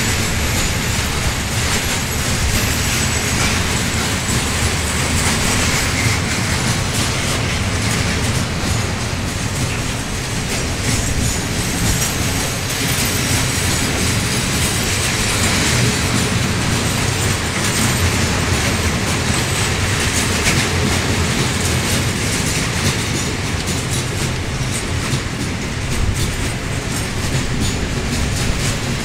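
Freight train of high-sided open wagons passing close by, a steady loud rumble of steel wheels on the rails with continuous clatter over the joints.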